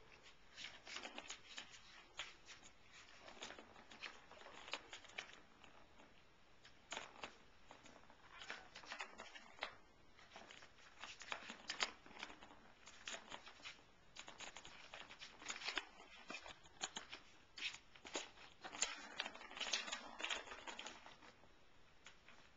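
Kittens batting a ball around a plastic ball-track toy: irregular clicks and knocks of the ball and paws against the plastic track, with scratchy rustling of paws and claws, busiest in a few flurries.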